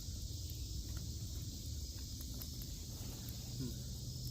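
Steady high-pitched insect chorus of crickets, over a low rumble, with a few faint clicks.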